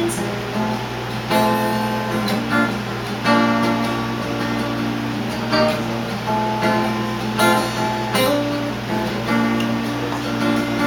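Guitar strumming chords with no singing, an instrumental break in the song, the chords changing every second or two. A steady low hum sits under the playing.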